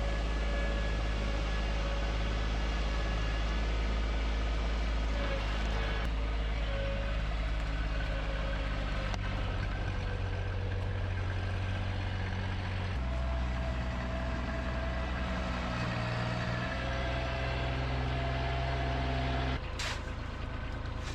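Heavy truck's diesel engine running steadily, its speed shifting a couple of times.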